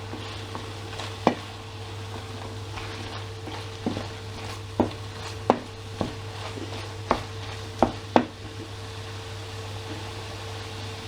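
Chopped chicken livers, bacon and onions sizzling in a frying pan as they are stirred. The stirring utensil knocks sharply against the pan about eight times, at an uneven pace.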